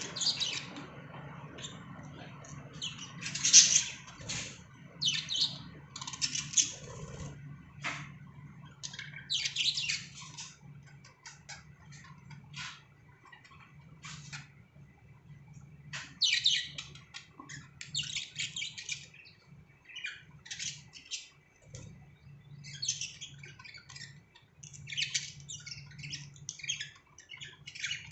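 Pet budgerigars chirping and squawking in irregular bursts of high, scratchy calls, over a low steady hum.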